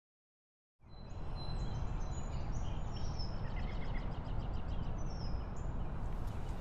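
Birds chirping in quick, repeated calls over a steady low rumble; the sound sets in a little under a second in, after a brief silence.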